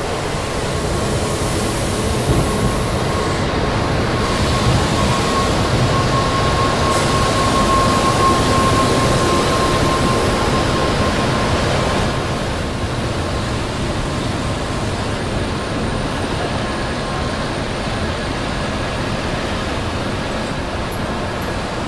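N700-series Shinkansen bullet train pulling in alongside a station platform: a steady rush of wheels and air as the cars pass. A faint thin whine sounds through the first half.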